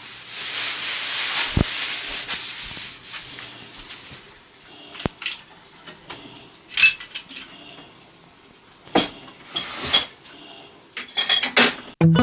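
Dishes, jars and containers being handled and set down, with scattered sharp clinks and knocks, a few in quick succession near the end. A soft rustling hiss runs through the first few seconds.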